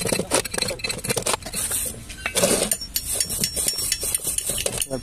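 Flat steel chipping tool knocking and scraping slag off a fresh E6013 stick-weld bead inside a steel pipe flange: rapid, irregular metallic clinks and scrapes.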